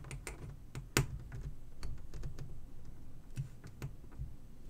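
Small plastic clicks and taps from a headset cable's black inline control housing being pressed together by hand, with one sharper click about a second in.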